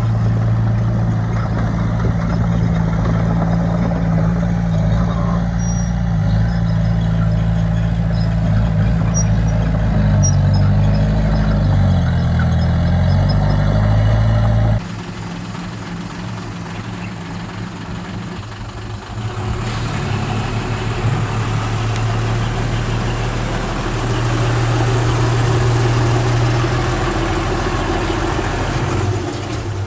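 Diesel engine of heavy earthmoving machinery running steadily, its pitch shifting briefly as it works. The sound cuts off abruptly about halfway through and gives way to a quieter engine sound that swells again later.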